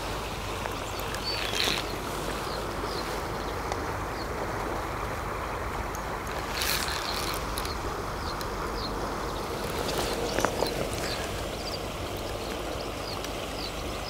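Steady rush of flowing river water, with a small bird chirping over and over in the background and a few brief rustles.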